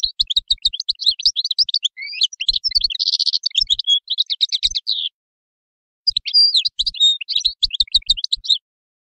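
European goldfinch singing a rapid twittering song of fast high notes, with a buzzy note about three seconds in. The song breaks off for about a second, then a second phrase follows.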